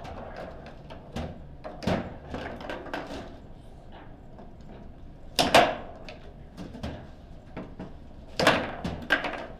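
Foosball table in play: irregular sharp clacks and knocks as the ball is struck by the plastic men and the rods bang. The loudest is a quick double crack about five and a half seconds in, with another hard cluster near the end.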